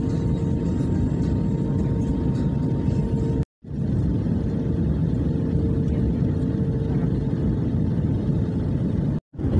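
Steady jet airliner cabin noise heard from a window seat over the wing: engines and airflow make a low rumbling roar, with a faint steady hum on top. The sound cuts out twice for a split second.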